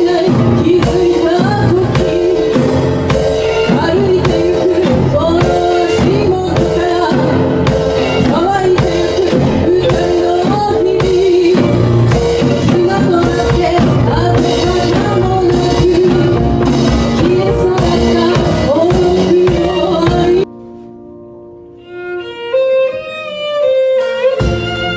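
Music with a steady beat and a prominent melody line. About twenty seconds in it cuts off abruptly, and after a soft pause a solo violin enters with a gliding melody over quiet accompaniment.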